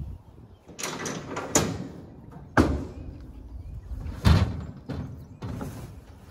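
Several heavy thumps and knocks in a steel livestock trailer as a man moves about and handles a plastic sack, with rustling between them.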